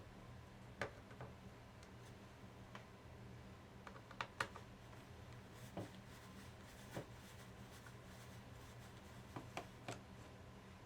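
Scattered light clicks and taps from the plastic and metal parts of an Asus K50IJ laptop being handled, with the loudest pair about four seconds in, over a low steady hum.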